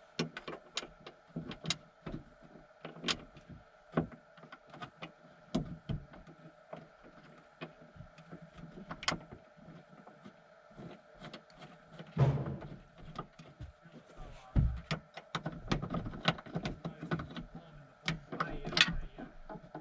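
Irregular metallic clicks, taps and knocks of hand work on a VW T5 sliding door's rear roller hinge and its bolts, with a few heavier dull thumps about twelve and fifteen seconds in.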